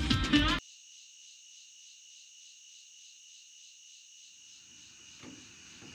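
Music cuts off abruptly about half a second in, leaving crickets chirping steadily in a high, faintly pulsing trill. A faint knock comes near the end.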